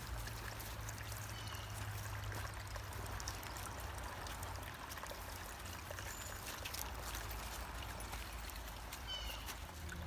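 Creek water flowing and trickling steadily over a low rumble, with a few faint, short, high chirps.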